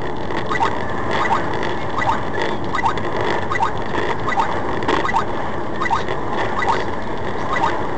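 Steady road and engine noise inside a moving vehicle's cab, with short, high-pitched squeaks or chirps repeating irregularly, one or two a second.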